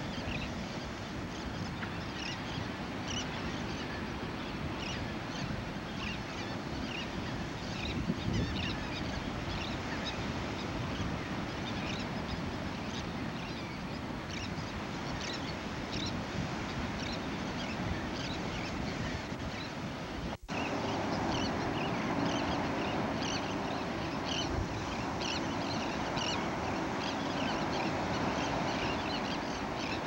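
Surf washing on a sand beach, with many short, high seabird calls scattered throughout. After a brief dropout about two-thirds in, a steady low drone joins the surf.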